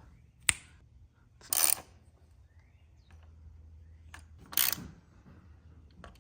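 Metal clicks from a torque wrench tightening spark plugs to 19 foot-pounds: one sharp click about half a second in, then two short clicking bursts about three seconds apart.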